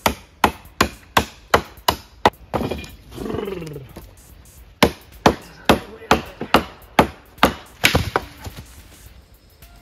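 An axe chopping wood: sharp, even strikes about three a second, stopping for a moment while a voice calls out, then going on for another run of about ten strikes.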